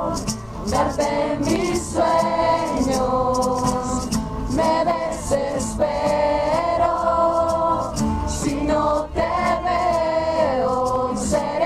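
Music of several voices singing together in long held notes, with frequent short sharp clicks over it.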